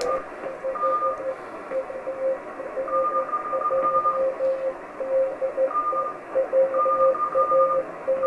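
Morse code (CW) signals on an amateur radio transceiver's speaker. One station keys a steady dot-dash rhythm at a low pitch, while a second, higher-pitched station keys on and off over it. Both sit in band hiss that the radio's wide receive filter lets through, since it has no CW filter fitted.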